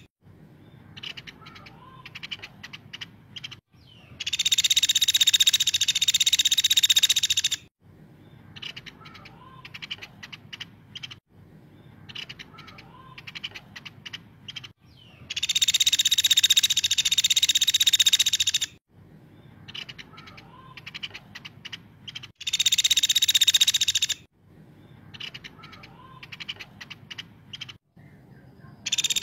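Caladi, a small woodpecker, giving loud, dense, high-pitched rattling trills, three bouts of a few seconds each with a fourth starting at the end, and fainter short ticks and calls between them.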